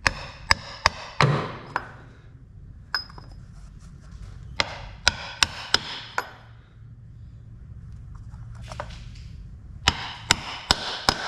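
Hammer tapping a socket to drive a new front output shaft oil seal squarely into a Toyota Hilux transfer case housing. Sharp metallic taps come in short runs of three to five, with pauses between, as the seal is worked in evenly.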